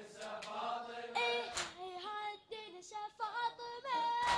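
A boy's unaccompanied voice singing a drawn-out, wavering melodic line of a Shia latmiya lament into a microphone, stepping between held notes. A couple of sharp slaps stand out, the mourners beating their chests.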